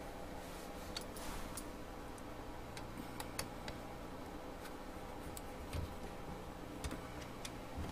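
Scattered faint clicks and ticks of small plastic kit parts and a self-tapping screw being handled and fitted, over a faint steady hum.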